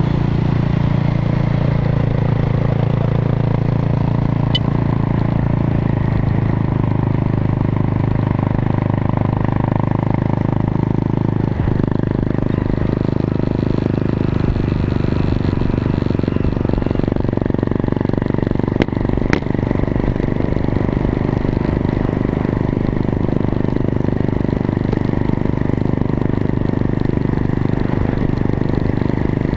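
An off-road motorbike or quad engine running at a steady speed for the whole stretch, with two sharp clicks a little past halfway.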